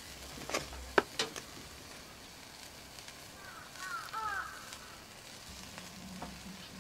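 Duck and green onions sizzling on a grill, with a few sharp clicks about a second in, the loudest a single clack, and a short run of high chirping squeaks near the middle.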